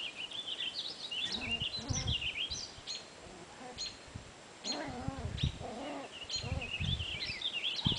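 Songbirds chirping and warbling steadily in the trees. A few low thumps and short lower-pitched sounds come about halfway through.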